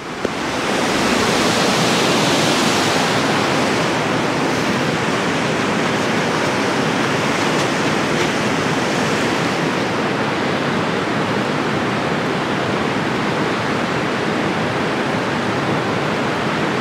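Steady rush of churning water in a dam spillway's outflow below a concrete wall.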